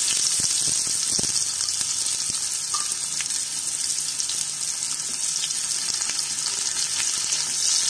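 Sliced onions sizzling hard in hot mustard oil in a kadai, a loud steady frying hiss, with a spatula stirring them through the oil.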